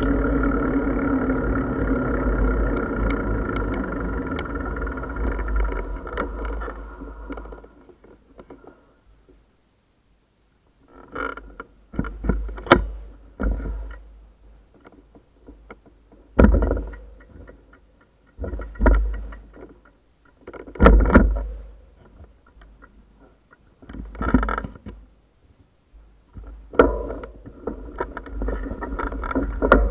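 Background music fades out over the first seven or eight seconds. Then come about seven separate bursts of deep wind rumble and sharp knocks on a bicycle-mounted action camera's microphone, with near quiet between them. A steady rumble returns near the end.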